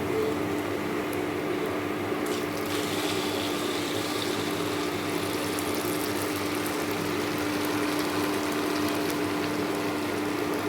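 Mysore bondas, small balls of maida batter, sizzling as they deep-fry in hot oil: a steady bubbling hiss that grows brighter about two seconds in, over a steady low hum.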